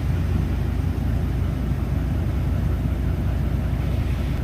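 Pickup truck engine running with a steady low rumble.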